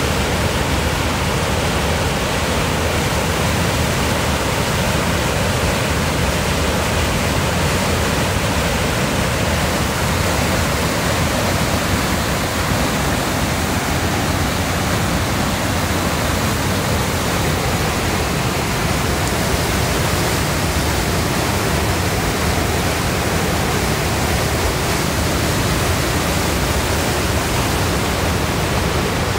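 River rapids rushing over rock ledges: a steady, unbroken wash of white water.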